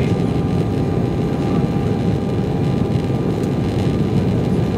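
Cabin noise of an Embraer 195 climbing just after takeoff: a steady low roar from its two GE CF34-10E turbofans at climb power and the airflow over the fuselage, with faint steady whining tones above it.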